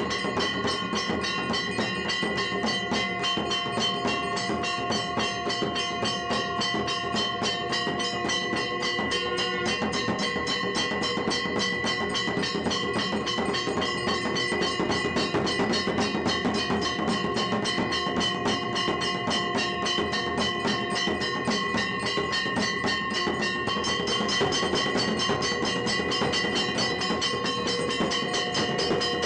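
Temple bells ringing continuously, struck in a fast, even rhythm, with several ringing tones sounding together throughout.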